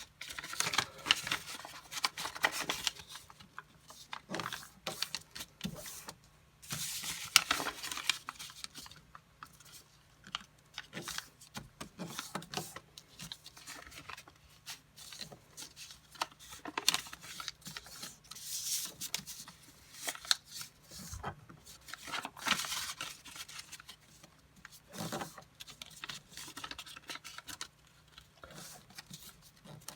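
A square sheet of paper being folded and creased by hand into a grid: irregular rustling and crinkling with crisp clicks, coming in uneven spells with quieter gaps between them.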